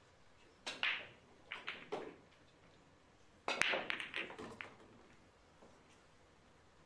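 Nine-ball break shot: the cue strikes the cue ball with a sharp crack and it smashes into the rack. A few ball-on-ball and cushion clicks follow, then a dense flurry of clacks about three and a half seconds in as the spread balls collide and run into the rails.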